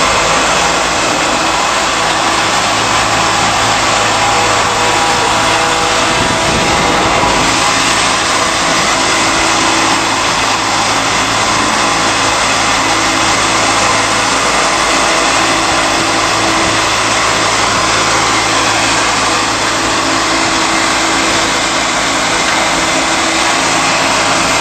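Tub-type rotary stalk crusher running loud and steady, shredding a tub full of dry crop stalks: a dense, unbroken grinding rush over a low motor hum.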